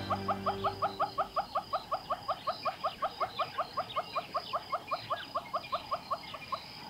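An animal's rapid call: short rising chirps repeated evenly about seven times a second, stopping shortly before the end. Intro music fades out under it in the first second.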